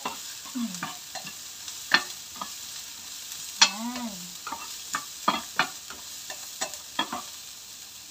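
Diced onion and ginger sautéing in hot oil in a frying pan, a steady sizzle, with a spatula clicking and scraping against the pan as it is stirred.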